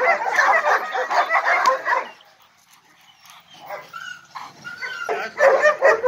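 A pack of German shepherds and Rottweilers barking over one another. The barking breaks off about two seconds in, goes nearly quiet for a moment, then builds back up into steady barking near the end.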